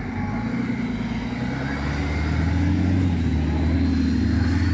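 Off-road vehicle engine running, picking up and getting louder about a second and a half in, then holding a steady note under load.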